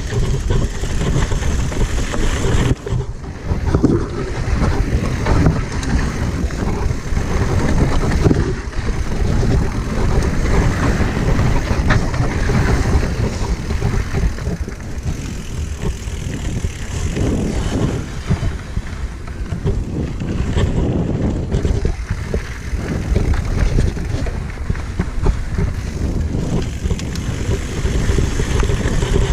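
Wind buffeting the microphone along with a mountain bike rattling and rolling over a rough trail during a downhill descent: a loud, steady rushing noise with many small irregular knocks.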